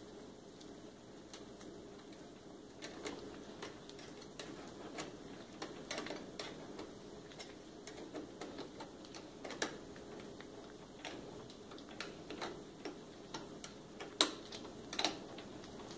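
Faint, irregular metallic clicks and ticks of a small wrench working the bolt of an automotive battery terminal clamp as it is tightened. The clicks start about three seconds in, with a few louder ones near the end.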